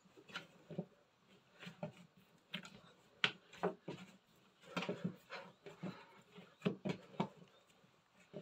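Bread dough being kneaded by hand on a wooden tabletop: irregular soft thumps and slaps as it is pressed and pushed, about two a second.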